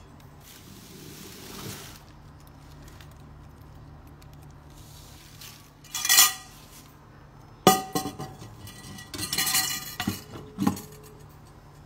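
Stainless steel inner pot of an Instant Pot Duo60 and its wire trivet rack clanking and ringing as the pot is handled and set back into the cooker base: a loud ringing clank about halfway through, a sharp knock soon after, then a cluster of clatters and a last knock near the end.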